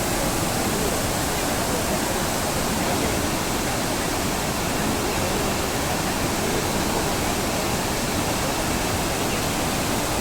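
Waterfall: water falling in a loud, steady, unbroken rush.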